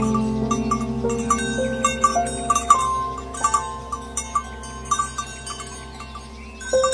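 Background instrumental music: held notes stepping through a slow melody over light bell-like tapping about three times a second.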